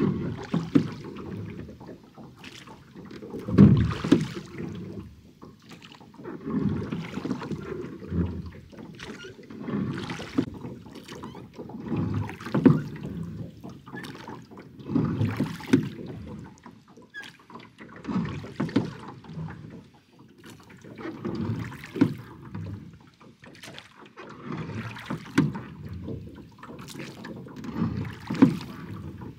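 Oars of a small rowing boat dipping and pulling through lake water, one stroke about every three seconds.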